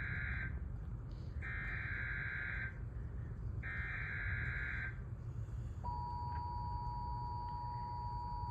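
Emergency Alert System broadcast tones. First come three screeching digital header bursts, each about a second long with short gaps between. About six seconds in, the steady two-tone attention signal (853 and 960 Hz) begins, a harsh continuous buzz that announces a warning. A steady low rumble runs underneath.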